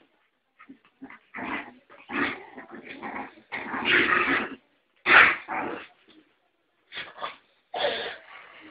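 Puppies play-fighting, giving short growls and yips in irregular bursts, loudest a little past the middle.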